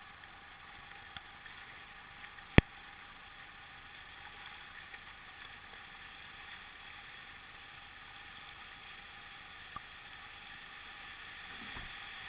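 Rushing river water, a steady hiss of whitewater, broken by one sharp, loud knock about two and a half seconds in and a couple of faint clicks.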